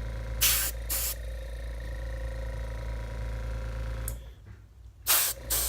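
Small airbrush compressor humming steadily while the airbrush sprays coating in short hissing bursts, two near the start and two near the end. About four seconds in, the hum drops away for nearly a second before the spraying resumes.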